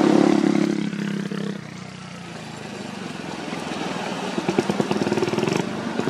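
A motorcycle engine running close by, fading away over the first second and a half. Then a motor scooter and a heavy truck approach along the road, growing steadily louder, with a pulsing engine beat near the end.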